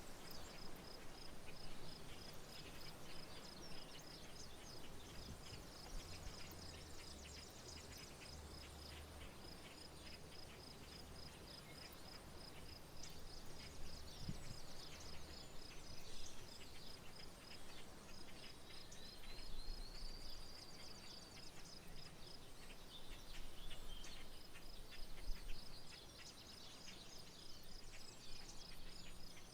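Rural outdoor soundscape: an insect, a cricket-type singer, chirping in a steady, even, high pulse that pauses midway and then resumes, with scattered bird chirps and calls over a low background noise.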